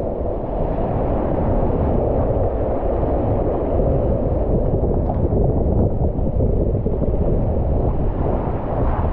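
Whitewater rapids rushing around a river kayak, with wind buffeting the microphone: a steady, muffled rush of water.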